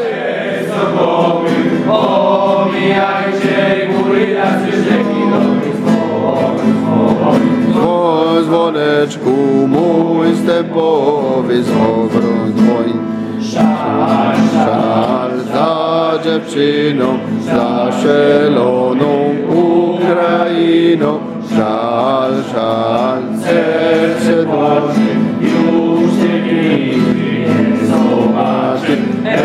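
A group of male and female voices singing a song together.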